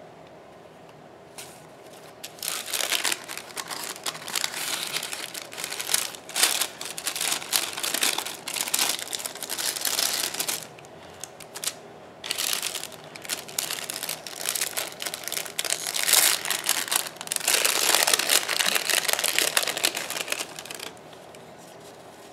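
Plastic sticker packaging crinkling and crackling in hands as it is opened and handled, in uneven bursts with a short lull about halfway. It stops about a second before the end.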